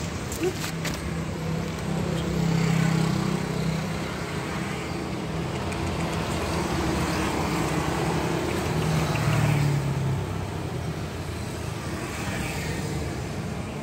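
Motor vehicles passing on the road: a steady engine hum over tyre and traffic noise, swelling twice, about two to three seconds in and again around nine to ten seconds.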